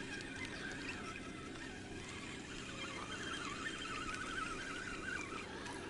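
Spinning reel being cranked steadily, reeling a hooked perch in toward the boat; a wavering higher whine runs through the second half.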